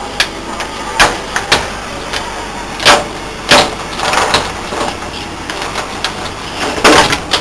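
Large plastic diffuser sheet from an LCD TV backlight being handled and pulled away, flexing and crackling in a series of sharp cracks and knocks, over a steady background hum.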